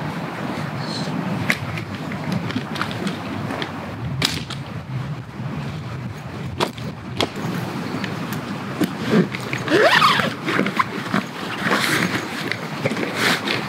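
Strong wind through the trees and buffeting the microphone, with footsteps and knocks on dry leaf litter as camping gear is carried and set down. From about nine seconds in, an animal calls several times, each call rising in pitch.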